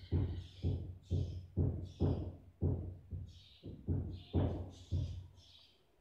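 A budgerigar's short, scratchy high chirps over a regular beat of deep thumps about twice a second; the thumps stop shortly before the end while the chirps go on.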